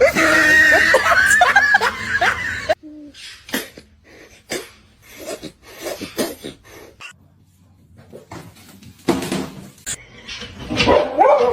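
People laughing, with short irregular sharp sounds in between.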